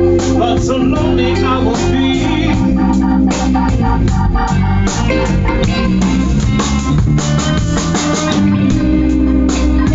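A live band playing a blues instrumental passage: held organ-style chords from a stage keyboard, electric guitar through an amplifier, bass guitar, and regular drum hits.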